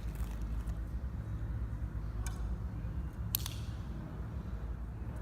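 Two short, sharp clicks, about a second apart, over a steady low background rumble.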